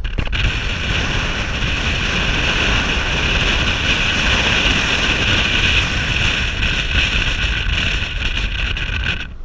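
Wind rushing over a camera microphone held outside a moving car, mixed with the car's road noise: a loud, steady rush with no change through the stretch.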